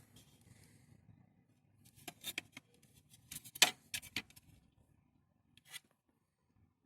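Handling noises: a cluster of sharp clicks and rubbing about two to four seconds in, and one more click near the end, over a faint low hum that fades out.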